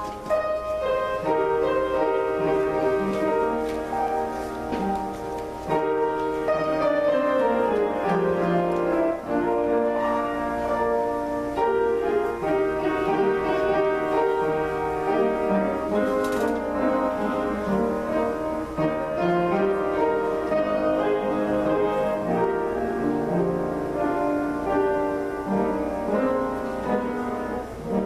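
Instrumental music with piano and low bowed strings such as cello, playing a slow melodic passage.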